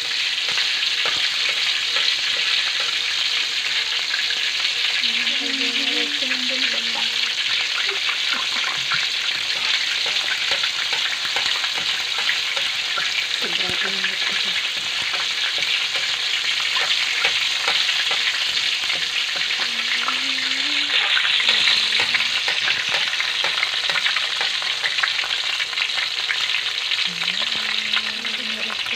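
Rellenong bangus (stuffed milkfish) frying in hot oil in a pan: a steady sizzle thick with fine crackling spatters throughout.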